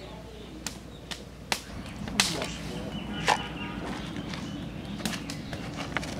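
Wood fire burning under a large cooking pot, crackling with scattered sharp snaps and clicks over a steady low background, two of the snaps louder a couple of seconds in.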